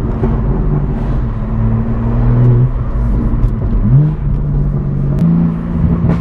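BMW M4 G82's 3-litre twin-turbo inline-six running through a full titanium cat-back exhaust while driving. The low engine note dips about a second and a half in, climbs quickly about four seconds in and steps up again a second later.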